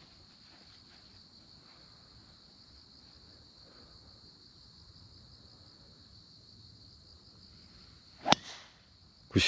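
Driver striking a golf ball off the tee: one sharp crack near the end, with a short fading tail after it, over a faint steady high-pitched background.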